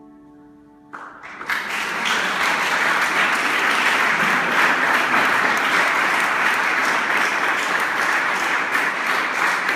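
A held final chord of music fades out, and about a second in a small audience breaks into applause that carries on steadily.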